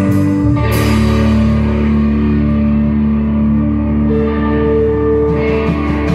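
Live rock band jam: electric guitars and bass playing long, ringing chords, with one loud crash about a second in.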